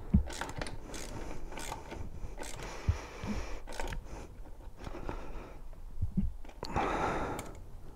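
Hex key turning in the bolt of a motorcycle rear spindle end cap as it is tightened by hand: faint, irregular metallic clicks and scrapes as the key is turned and repositioned.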